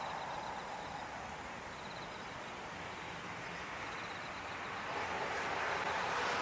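Distant Rolls-Royce Trent XWB engines of an Airbus A350-941 taxiing at low thrust: a steady whooshing hiss that eases slightly, then swells again near the end.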